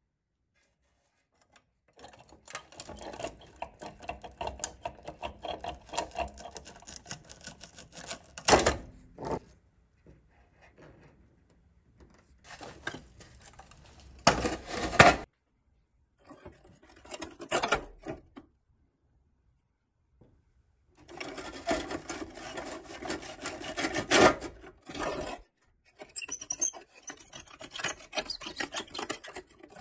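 Hand scraping and brushing of caked dirt and rust off the old toy truck's rusted steel axles and rubber wheels. It comes in irregular rasping bursts of a few seconds each, with short pauses between them and a couple of sharper strokes.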